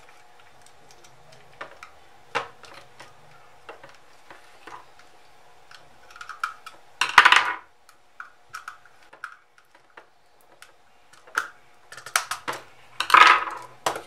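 Clicks, taps and small knocks from handling a plastic stop/start push-button unit and its wires, with a screwdriver working the terminal screws. There are two louder clunks, one about halfway through and one near the end, over a faint steady hum.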